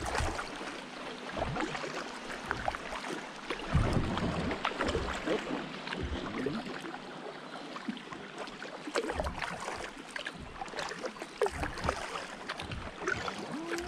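Kayak paddle strokes dipping into the river, with small irregular splashes and drips of water off the blades.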